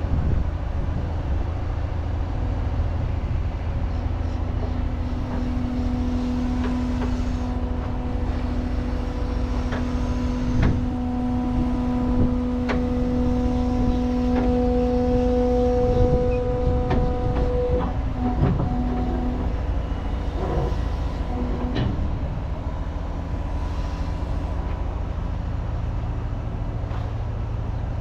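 Cat 320 excavator's diesel engine running with its hydraulics working, a held whine from about five seconds in until about eighteen seconds, and several sharp metal knocks in the middle of the stretch.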